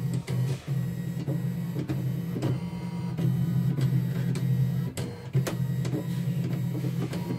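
CNY E960 computerized embroidery machine's frame-drive motors whirring as the hoop is moved to a skipped-ahead stitch position, with scattered clicks. The hum breaks off briefly about half a second in and again about five seconds in.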